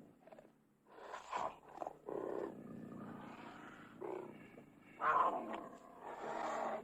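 Cougar snarling in a series of rough, breathy bursts. The first comes about a second in, and the loudest starts about five seconds in.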